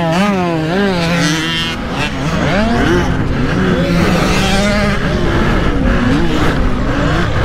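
Several small pit bike engines revving up and down as the bikes race around the track, their pitches overlapping and rising and falling.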